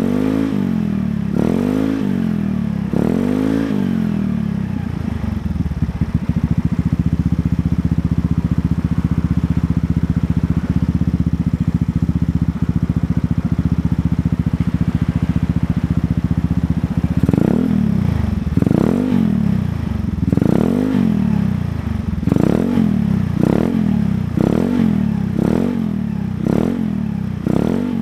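110cc automatic scooter's single-cylinder four-stroke engine breathing through a Kenochi racing exhaust. It is blipped up and down a few times, settles to a steady idle from about five seconds in, and is then revved in a quick run of short blips over the last ten seconds.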